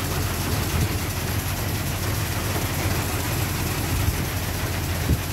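A Power Duster paddy cleaner's blower fan and a tractor with a front loader run together, making a steady low hum under a constant airy hiss. Two short knocks come about four and five seconds in.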